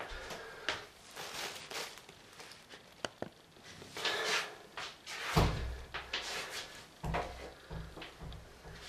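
A glass shower enclosure door being handled, with a run of knocks, clicks and rattles and a heavy thump a little over five seconds in.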